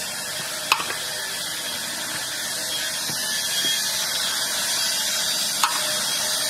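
A power tool whirring steadily in the background where workmen are at work, slowly getting a little louder, with two sharp clicks, one about a second in and one near the end.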